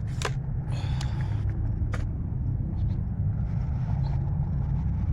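Sharp clicks and a brief metallic scraping as a break-barrel spring air rifle is cocked and loaded between shots, over a steady low rumble.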